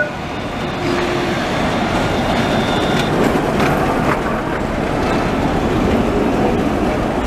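Alstom Citadis 302 low-floor tram running past at close range: a steady rushing running noise of wheels on rails that swells a little about a second in.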